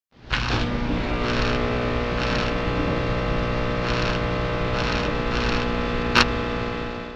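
Neon-sign sound effect: a steady electrical buzz with bursts of hissing crackle about once a second as the tubes flicker, and one sharp zap about six seconds in before it fades out.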